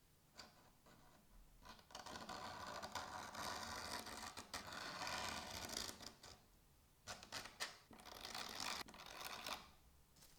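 Hand-tool work on a knife: a long stretch of scraping or rubbing, a few sharp clicks, then a second shorter stretch of scraping.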